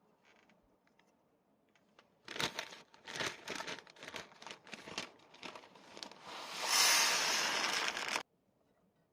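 Irregular crinkling and rustling of something being handled, starting about two seconds in, then a louder steady hiss of about a second and a half that cuts off suddenly.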